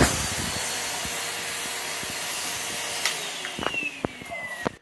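Henry vacuum cleaner running with a steady rushing hum; in the last second and a half its motor whine falls in pitch as it winds down, with a few clicks.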